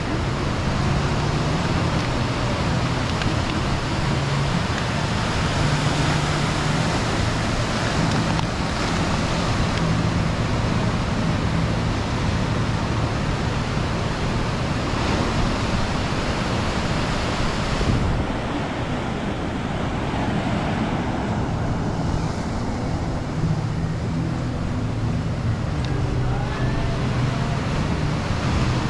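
Steady rushing outdoor noise, with low humming notes underneath that come and go.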